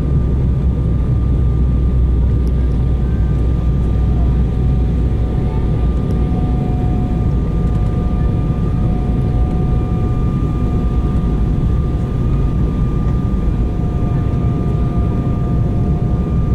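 Steady roar of a jet airliner heard from inside the passenger cabin during its descent to land: engine and airflow rumble, with two faint steady high tones from the engines above it.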